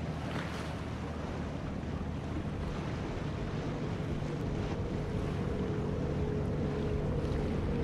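Motorboat running over open water: a steady rush of water and wind over a low engine drone, slowly growing louder, with a held tone joining about five seconds in.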